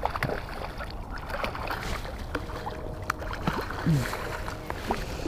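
Hooked brown trout splashing and rolling at the surface close to a float tube, with water lapping and scattered sharp clicks. A short low falling sound about four seconds in is the loudest moment.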